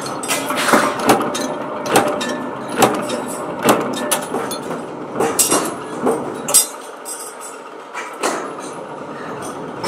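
Power press punching steel sprocket blanks: a sharp metallic impact about once a second over a steady workshop din. About two-thirds of the way in the din drops away, leaving a thinner background with only an occasional clank.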